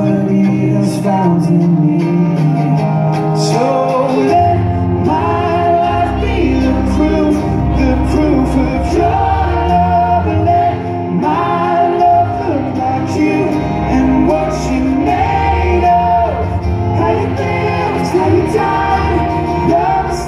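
Live band playing a song with male lead vocals, acoustic guitar and violin, echoing in a large arena; a heavy bass line comes in about four seconds in.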